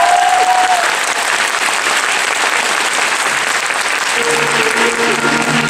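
Theatre audience applauding steadily after the bow. Stage music with held notes comes in about four seconds in.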